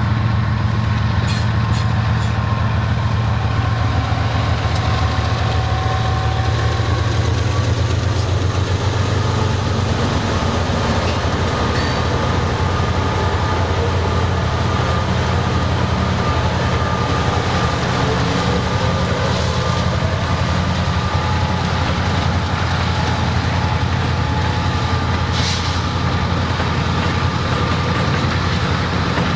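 Two diesel locomotives running steadily at low throttle as they pull a hopper train slowly past, a steady low engine drone mixed with the rolling noise of steel wheels on rail.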